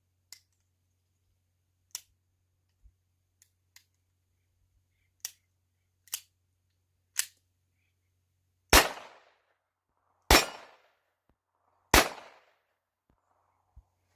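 A .22 LR 1911-style pistol is fired three times, about a second and a half apart, each shot with a short ringing tail. A string of lighter, sharp clicks comes before the shots.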